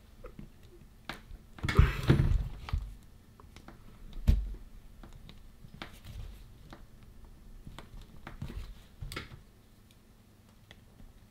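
Pliers prying at the spot-welded nickel strips and plastic frame of a cordless drill's lithium-ion battery pack: scattered clicks and scrapes, with a loud half-second crackling scrape about two seconds in and a dull knock about four seconds in.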